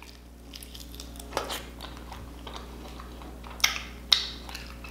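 A person chewing a chicken wing: quiet wet mouth sounds with scattered sharp clicks and smacks. The two loudest smacks come about three and a half and four seconds in, as sauce is licked off the fingers.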